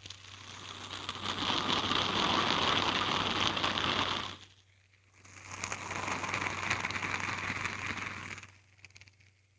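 Hand spinner whirring close to the microphone in two spells. The first lasts about four seconds and drops away quickly. After a short gap, the second runs about three seconds and fades out.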